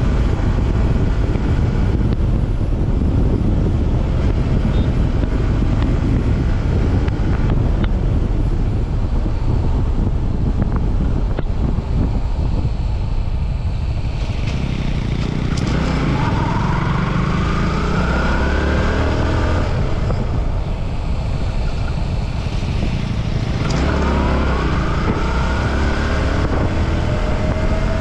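Yamaha R15 V4's 155 cc single-cylinder engine heard from the rider's seat under heavy wind rumble on the microphone. The engine note rises in pitch a little past halfway and again near the end as the bike accelerates.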